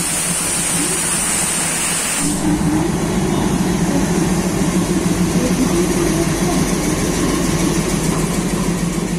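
Indian Railways diesel locomotive engine running with a steady low throb as it moves along the platform. A high hiss in the first two seconds cuts off about two seconds in.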